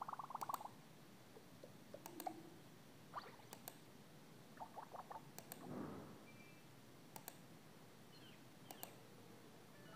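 Near silence with faint clicks every second or two, fingertip taps on a phone touchscreen while browsing a list of notification sounds. A few faint brief tones sound between them.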